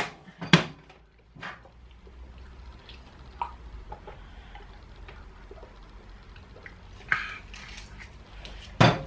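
Clinks and knocks of kitchen items being handled: a few sharp ones in the first second and a half and a strong one near the end, with faint scattered handling noises in between.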